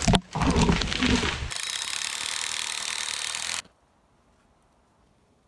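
A chainsaw-felled tree cracking at its cut and crashing down through branches, with a sharp crack near the start and the crash lasting about a second and a half. Then a steady hiss for about two seconds that cuts off suddenly, leaving near quiet.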